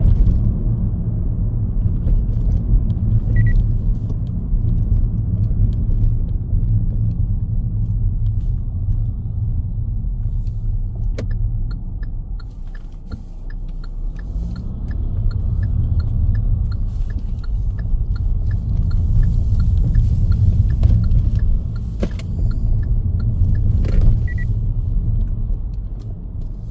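Low rumble of a car's engine and tyres heard while driving, easing off for a moment about halfway and then building again. From about eleven seconds in, a turn-signal indicator ticks steadily about twice a second for some thirteen seconds. A short electronic beep sounds near the start and again near the end.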